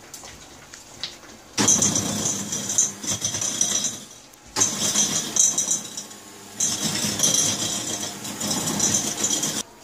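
Electric hand mixer running in three runs of two to three seconds each, starting about a second and a half in, its beaters working butter and sugar in a glass bowl: a steady motor whine with a busy churning noise.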